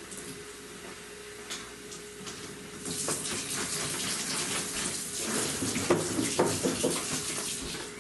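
Utility-sink faucet running water into a plastic milk jug as it is rinsed out. The water comes on strongly about three seconds in, and midway through there is a cluster of hollow knocks and clatter as the jug is handled in the sink. A faint steady hum runs underneath.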